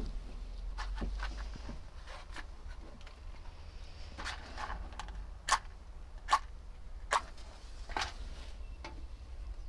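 A box of safety matches being handled and opened, with a few soft clicks and a rustle, then a match struck against the side of the box: several sharp scrapes about a second apart, the match lighting by the last of them. A steady low hum lies underneath.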